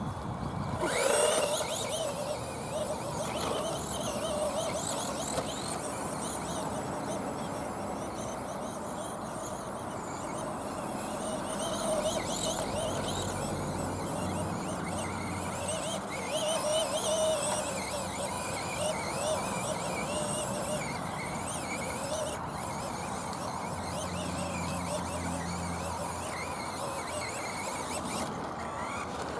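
Small electric RC monster truck driving over grass and a paved path, its motor and gears whining. The pitch rises sharply about a second in as it speeds off, then wavers up and down with the throttle.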